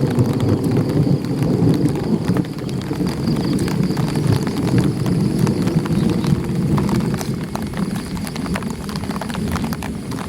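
Light rain falling on an umbrella held overhead: a dense, low drumming on the canopy with many sharp ticks of single drops. The drumming eases slightly near the end.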